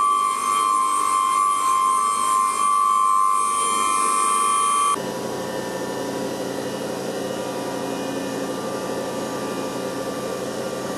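Electrical hum from 33 kV switchyard equipment: a loud steady high whine with overtones that cuts off suddenly about five seconds in, leaving a lower, quieter steady hum.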